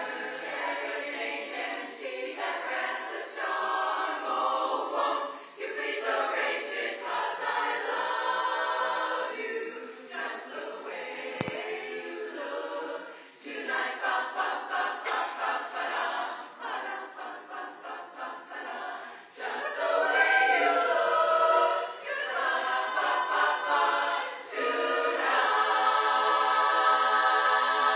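Large choir singing together, swelling to a loud sustained chord over the last few seconds.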